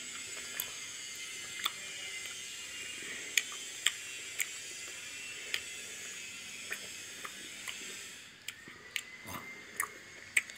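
Close-up chewing of a pizza-shaped gummy candy: scattered sharp, sticky mouth clicks over a steady hiss.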